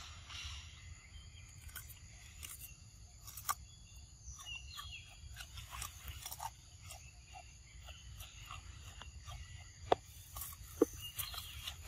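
Macaque chewing and handling a green leafy shoot: scattered small clicks and crunches over a low outdoor rumble, with two sharper clicks near the end.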